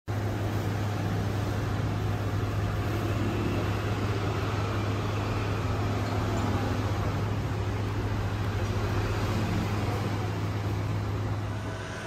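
A steady low hum over an even background din, without pauses or distinct events, easing slightly near the end.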